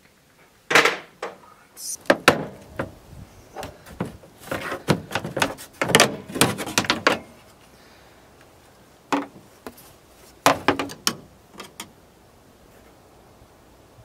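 Metal hand tools and parts clattering and knocking as they are handled, a run of sharp clanks and knocks that thins out about halfway, followed by a few lighter clicks.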